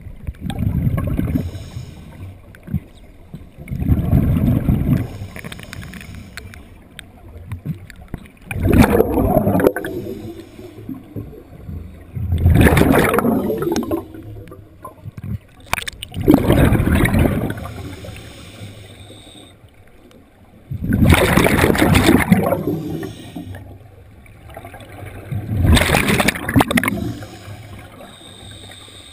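Scuba diver breathing through a regulator underwater: a gurgling rush of exhaled bubbles about every four seconds, seven times over, quieter between breaths.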